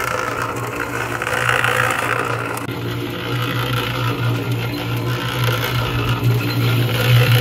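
Small electric cement mixer running, its motor giving a steady hum as the drum turns.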